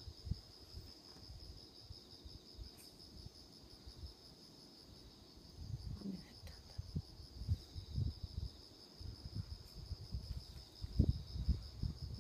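Insects trilling outdoors: a steady, high, rapidly pulsing song, with irregular low rumbling under it that grows louder in the second half.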